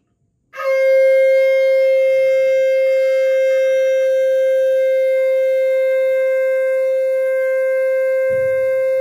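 Conch shell (shankh) blown in one long, steady note that starts about half a second in and holds its pitch without a break.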